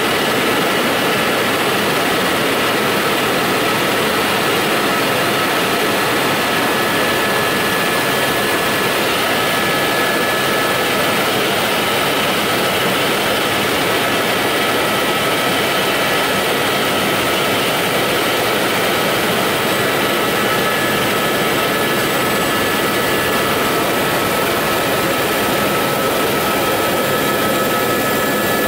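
Steady, loud engine drone that does not change, with a few constant high whining tones over it.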